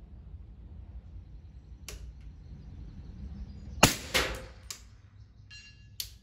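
.300 Blackout AR with a 6-inch Faxon barrel firing subsonic rounds. There is one sharp, loud shot about four seconds in, with several fainter sharp knocks before and after it.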